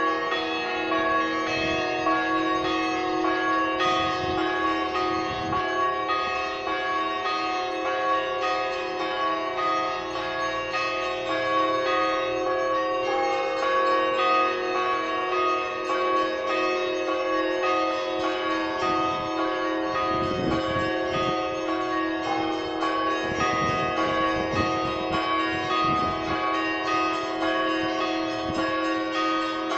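Church bells ringing a continuous peal: repeated strokes on several bells, their tones ringing on and overlapping.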